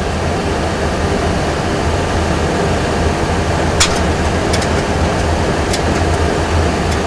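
Steady cockpit noise of a Boeing 737 Classic full flight simulator in flight: a constant low engine hum under a broad airflow rush, with a few faint clicks.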